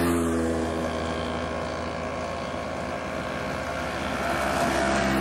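A vehicle engine running steadily. A second engine at a different pitch comes in near the end.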